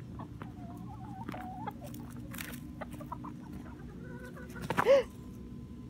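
Chickens clucking: a few soft clucks in the first couple of seconds, then one loud, short cluck with a falling pitch about five seconds in.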